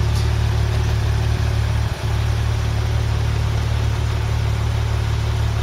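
Porsche engine idling steadily with a deep, even rumble.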